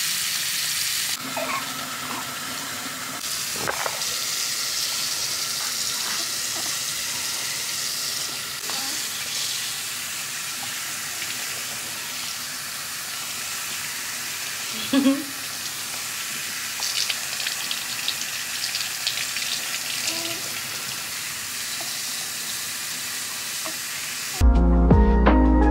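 Kitchen-sink tap running and water splashing over a newborn during a bath, a steady hiss with a few small knocks. Music comes in near the end.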